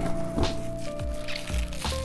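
Background music with long held notes, over a few light rustles and taps of clear plastic packaging being handled.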